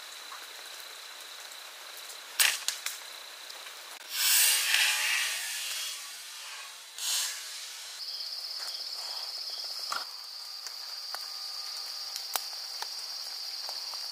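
Insects trilling steadily in a high pitch, with a stronger, finely pulsing trill taking over about eight seconds in. A sharp snap comes about two seconds in, and a loud rushing whoosh follows a couple of seconds later, with a shorter one after it and a few light clicks later on.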